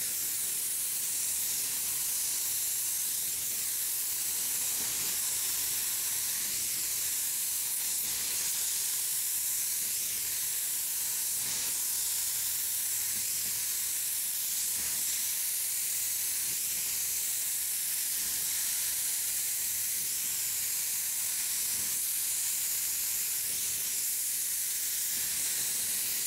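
Gravity-feed paint spray gun with a 1.4 mm nozzle, hissing steadily as compressed air atomises a coat of wet-on-wet primer onto a car door.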